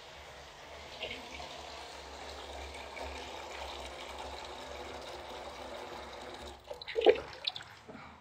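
Tap water running into a stainless steel dog bowl in a sink, filling it. About seven seconds in, the flow stops and the metal bowl clanks sharply a few times as it is handled and lifted.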